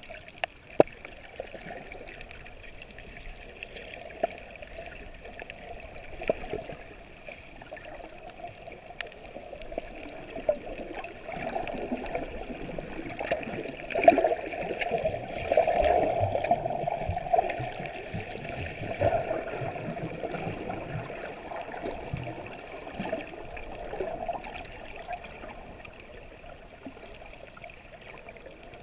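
Water moving around a submerged camera: steady sloshing and gurgling with scattered sharp clicks, louder through the middle stretch.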